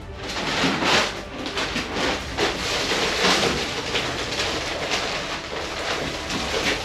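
Gritty scraping of sand-and-cement dry-pack mortar being worked by hand around a shower drain, in uneven strokes.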